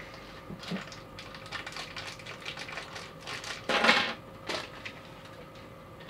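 A clear plastic bag crinkling and rustling as it is opened and emptied, with small hard plastic parts clicking onto a desk. The loudest rustle comes about four seconds in.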